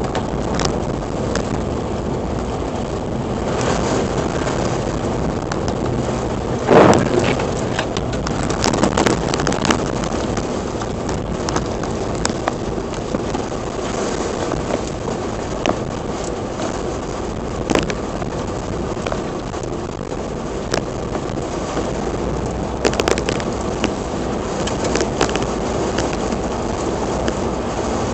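Blizzard wind blowing steadily as a rushing noise buffeting the microphone, with scattered crackles and a stronger gust about seven seconds in.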